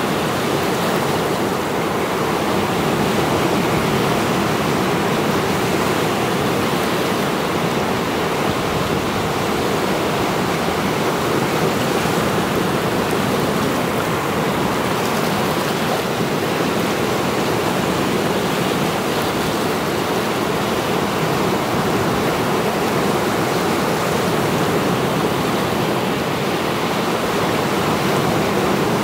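Rough Mediterranean surf breaking onto a rocky shore: a steady, unbroken rush of breaking waves and foam, with no gap between one breaker and the next.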